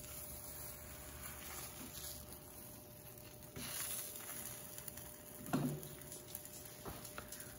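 Egg sizzling faintly on an electric flat-top griddle, with a metal spatula tapping and scraping against the rolled omelette and the griddle plate. The loudest moment is a single soft knock about five and a half seconds in.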